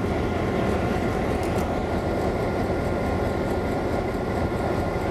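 Vintage EMD streamlined diesel locomotives idling: a steady, even engine rumble with a faint steady whine over it.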